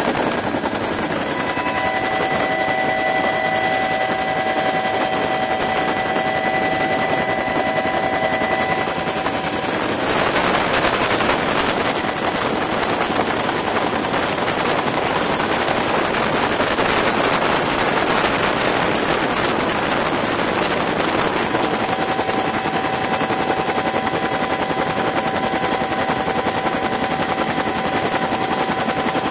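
Bell UH-1 Huey helicopter in flight, heard from inside the cabin: a loud, steady din of rotor and turbine with rapid, even rotor pulses. A few steady whining tones fade out about ten seconds in and come back near the last third.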